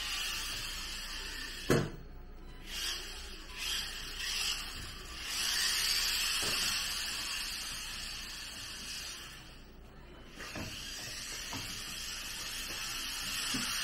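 Mini Q 1:28-scale 4WD RC car's small brushed motor and gearing whirring in swells as it is driven in bursts over a tiled floor, with a sharp click about two seconds in.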